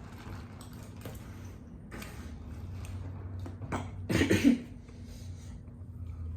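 A single loud cough about four seconds in, with faint clicking eating noises before it.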